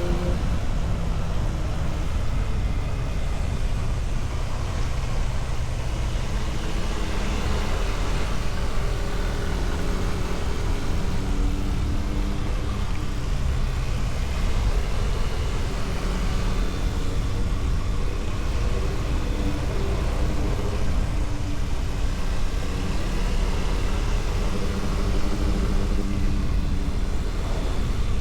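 Vehicle engine running at road speed under a steady low rumble of wind and road noise, its pitch shifting a little now and then.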